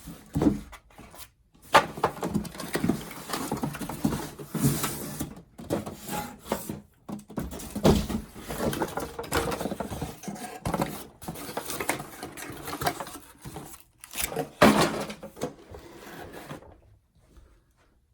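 Irregular knocks, clicks and rustling as the carpet cleaner's plastic parts and packaging are handled, dying away near the end.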